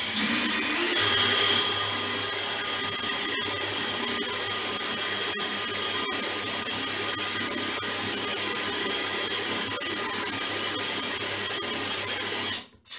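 DeWalt cordless drill boring into a tiled wall. The motor spins up over the first second, then runs steadily under load with a constant whine, and stops just before the end.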